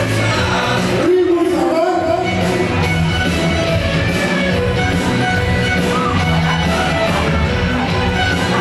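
Dance music with singing, played loud and steady over a sonidero's DJ sound system.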